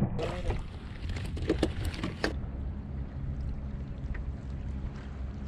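Splashing of a hooked redfish thrashing at the surface beside a fishing skiff, a few sharp splashes over the first two seconds. After that comes a steady low rumble of wind on the microphone, with water moving past the hull.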